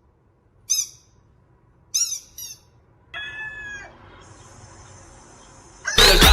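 Test sound effects of the kind played to make a dog tilt its head: two short, high, bird-like squeaky calls about a second apart, then a longer wavering tone and a steady high hiss. Loud music cuts in near the end.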